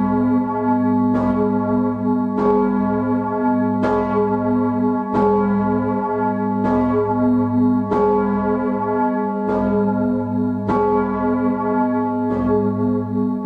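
The 4,100 kg bronze Bürgerglocke St. Petrus, tuned to G sharp, is swinging at full ring, heard close up in its bell chamber. Its clapper strikes about every second and a half, nine strokes in all, over the bell's continuous deep hum.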